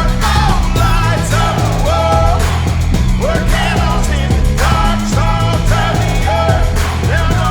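Music: an upbeat song with sung vocals over a full band and steady beat.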